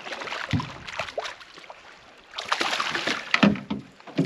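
Hooked largemouth bass splashing and thrashing at the water's surface as it is played in, in irregular bursts of splashing and sloshing water, the second burst a little after the middle.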